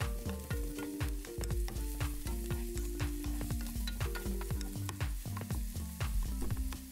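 Wooden spatula stirring and scraping diced pork and sautéed onion, garlic and ginger in hot oil in a nonstick wok, with many quick knocks of the spatula against the pan over a steady sizzle.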